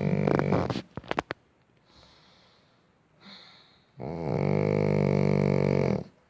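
Shih Tzu snoring. A long, steady snore fades out about a second in, a few soft clicks follow, and then a second long snore of about two seconds comes near the end.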